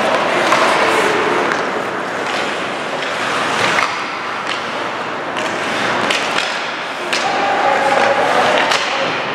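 Ice hockey game sounds: skates scraping on the ice over a steady hiss, with scattered sharp knocks of sticks, puck and boards.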